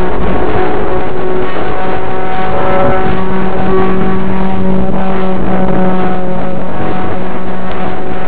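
Small RC plane's electric motor and propeller running at high throttle, heard loud and close from onboard: a steady hum of several tones over a rushing noise.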